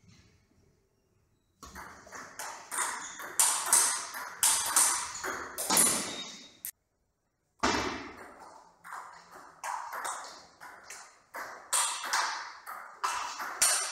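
Table tennis rally: the ball clicking in quick alternation off the players' rubber bats and the tabletop. Two stretches of rapid clicks are broken by about a second of silence about halfway through.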